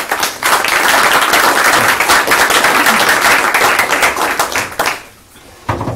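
Audience clapping, a dense applause that dies away after about five seconds.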